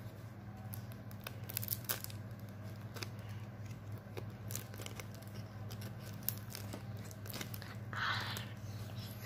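Snap-off utility knife cutting into a parcel's plastic wrapping and tape, with scattered sharp clicks, scraping and crinkling of the plastic film, and a longer crinkle about eight seconds in. A steady low hum runs underneath.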